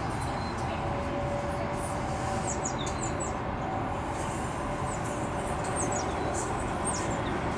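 Steady rumble of an Airbus A320's jet engines, with two faint steady tones in it. Birds chirp over it, several short falling calls.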